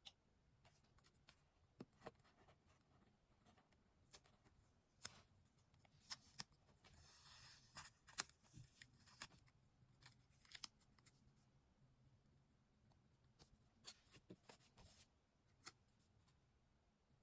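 Quiet paper-crafting sounds: scattered scissors snips and clicks as paper is cut and handled, with a longer rustle about seven seconds in.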